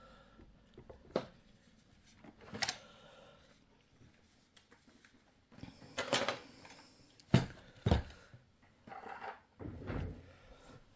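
Handling noise of a plastic RC radio transmitter being picked up, turned around and set down: a series of irregular knocks and thumps with some rustling, the two sharpest knocks about three quarters of the way through.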